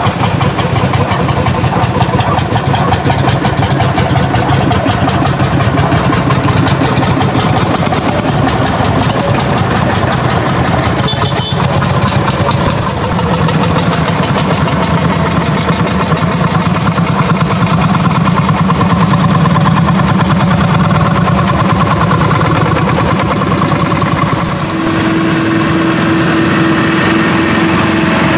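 Engines of several vintage tractors running as they pass slowly in a line, with a fast, even pulsing throughout. A steady hum joins near the end.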